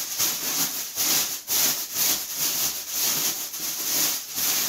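Thin plastic bin-liner film crinkling and rubbing against a cardboard tube as it is pushed down into a nappy bin refill cassette, in repeated strokes about two a second.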